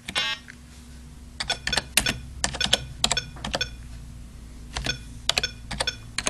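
Keystrokes on a computer keyboard: a message typed in quick irregular bursts of clicks with short pauses between words, over a steady low hum.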